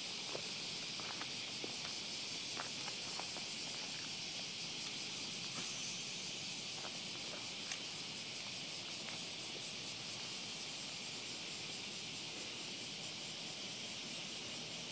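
Steady high-pitched chorus of insects, like crickets, trilling without a break. A few faint taps and clicks sound in the first few seconds, and one sharper click comes a little past the middle.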